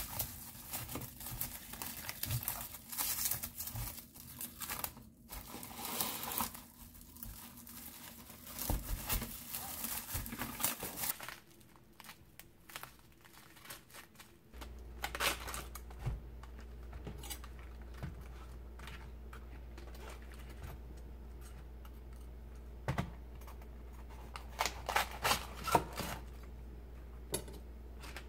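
Plastic cling wrap crinkling and rustling as it is wrapped by hand around a cut cabbage quarter, for about the first ten seconds. Then it goes quieter over a steady low hum, with scattered crisp snaps and a cluster of them near the end as cabbage leaves are pulled off one by one.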